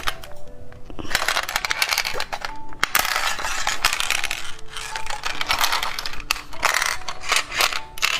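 Plastic candy-toy packaging crinkling and tearing as it is unwrapped, in long dense rustling stretches, over light background music with a simple melody.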